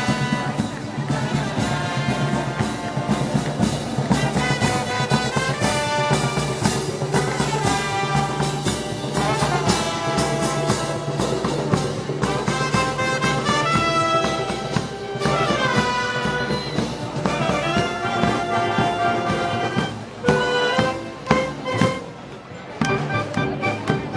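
Festival brass band playing: trumpets and trombones hold notes over a steady low part and a regular beat. The music drops away briefly a few seconds before the end.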